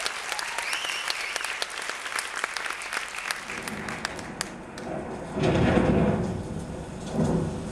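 Theatre audience applauding, dense clapping that thins out a little past halfway, followed by a couple of louder, deeper bursts of sound.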